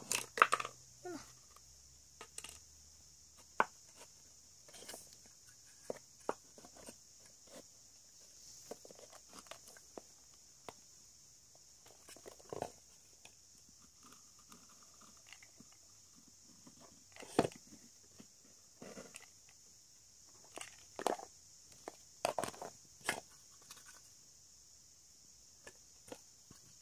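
Scattered taps, knocks and clicks of small wooden boxes and a hot glue gun being handled and set down on a tabletop, over a steady faint high hiss.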